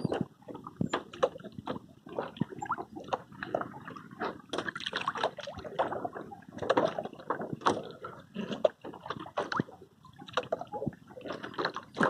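Sea water sloshing and splashing around a paddled canoe, in many short, irregular splashes.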